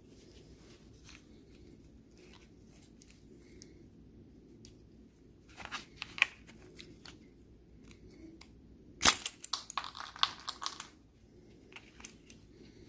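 Plastic clicks and rattles from the clock spring (airbag ribbon-cable coil) of a Renault Megane II steering-column switch being handled and taken apart. A few clicks come about six seconds in, then one sharp click about nine seconds in, followed by a run of clicks and rattles lasting about two seconds.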